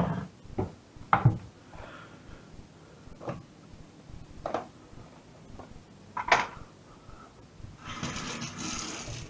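Kitchen handling sounds: a cupboard door and containers knocking and clattering in a handful of short, sharp knocks. Near the end comes a second or so of the kitchen tap running over a hand into a stainless steel sink.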